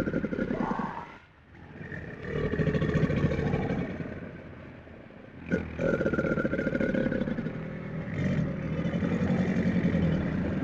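Deep, pulsing growls from a large wild animal, in long calls broken by two short pauses.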